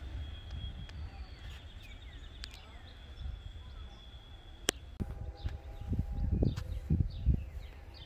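Birds chirping in short, falling calls over gusts of wind buffeting the microphone. A steady high whine stops about halfway through, and a faint low hum of several steady tones comes in shortly after.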